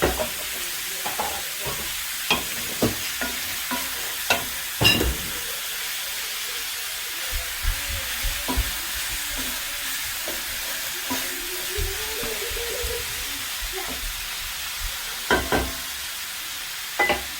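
Sliced beef with onion and jalapeño frying in oil, sizzling steadily. A utensil knocks and scrapes against the pan now and then as it is stirred: several knocks in the first five seconds, a pair about three-quarters of the way through, and one more near the end.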